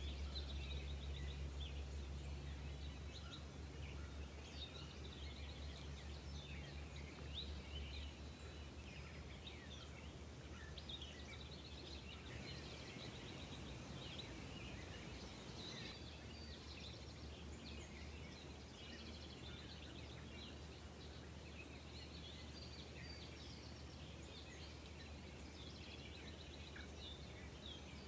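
Many small birds chirping and twittering throughout, over a steady low hum.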